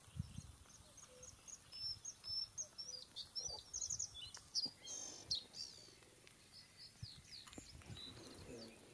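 Male bluethroat singing: a string of short, evenly spaced high notes, about four a second, runs into a fast, varied phrase of twittering and buzzy notes, with a few more short notes near the end.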